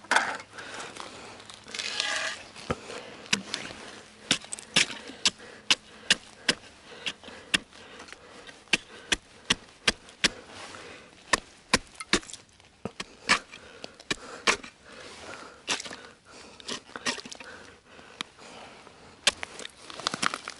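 Ice chisel chipping open a fishing hole that has frozen over: a long series of sharp strikes on ice, about one or two a second.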